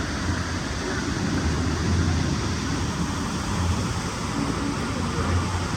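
Steady rushing noise of water and wind on a water-coaster raft ride, with a low rumble that swells and fades several times.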